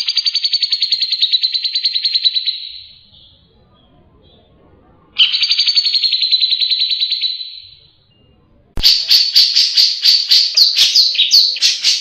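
Grey-cheeked bulbul (cucak jenggot) singing: two rapid high trills of about three seconds each, then a fast run of loud, sharp notes that starts suddenly and cuts off abruptly at the end.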